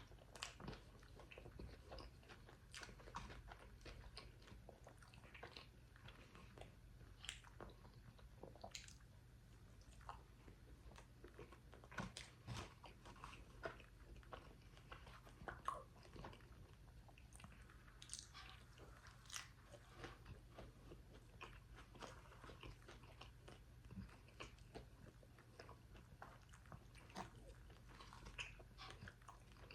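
Close-miked eating: repeated small crunches and chewing, with sharp mouth clicks scattered throughout as the food is bitten and chewed.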